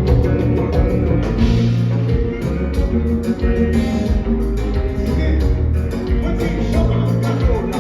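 A kompa band playing: a strong bass line under a steady drum beat, with guitar.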